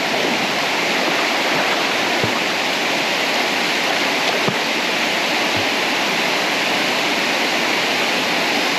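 Waterfall's steady, unbroken rush of falling water.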